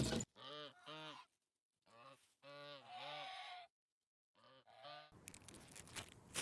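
Geese honking: a run of about seven short, arching honks in small groups, set off by being greeted.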